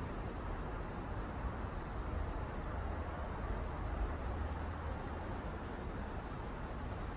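A cricket's thin, high trill, steady at first and then breaking into short broken chirps about two and a half seconds in, over a steady low rumble.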